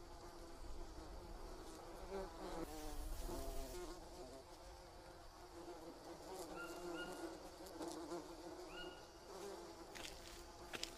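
Faint buzzing hum that wavers up and down in pitch, with a few short high tones partway through.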